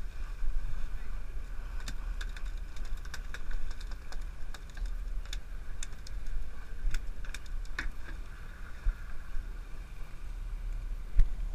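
Steady rumble of a fishing boat's engine and wind, with irregular sharp clicks and ticks scattered throughout.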